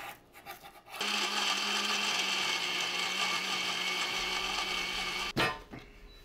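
Electric blender (mixer) running at a steady speed, grinding Chinese yam and cabbage into a health drink. It starts suddenly about a second in and cuts off after about four seconds.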